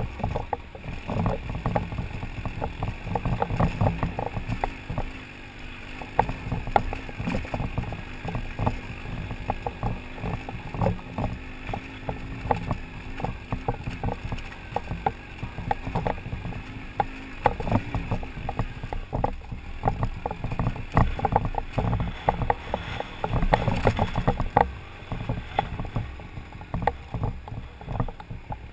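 BMW adventure motorcycle's engine running at low speed on a rough gravel road, with frequent irregular knocks and rattles as the bike and camera mount jolt over rocks.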